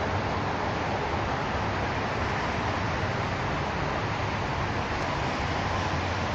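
Steady rushing background noise, even throughout, with no distinct sounds standing out.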